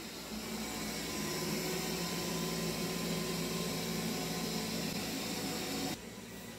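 Roborock S6 robot vacuum running over carpet: a steady whir with a low hum, which drops off suddenly about six seconds in.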